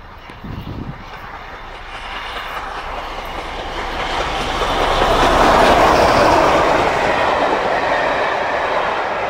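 LNER A3 Pacific 60103 Flying Scotsman, a 4-6-2 steam locomotive, approaching at speed with its train: a rush of noise that swells to its loudest about halfway through, then stays strong as the coaches run past on the rails.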